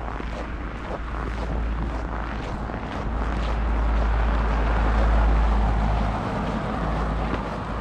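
Footsteps crunching on a snowy sidewalk, under a low rumble that swells to its loudest about five seconds in and then eases.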